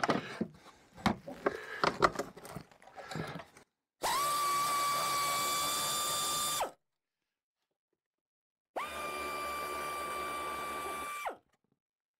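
Power ratchet with a socket on an extension running twice, about two and a half seconds each, a steady whine with hiss that spins up at the start and stops sharply, backing out a snowmobile chain case bolt. Before it, light clinks and knocks of the tool being fitted onto the bolt.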